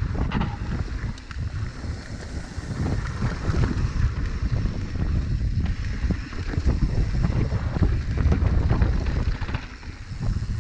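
Wind buffeting the microphone over the rumble and clatter of a mountain bike rolling down a dirt trail, with frequent small knocks and rattles.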